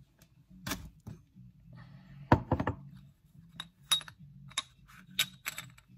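Metal clinks and knocks of a bearing puller being worked to pull the front ball bearing out of a small nitro engine's crankcase. A loud knock comes a little over two seconds in, then a run of short, ringing metal clinks.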